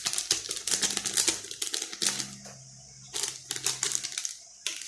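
Quick dry crackling and clicking in clusters, as a plastic packet of Crispy Fry breading mix is handled and the mix is poured out.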